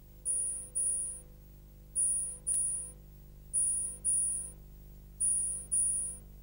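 An insect chirping in high-pitched double chirps, four pairs repeating about every one and a half seconds, over a faint low hum.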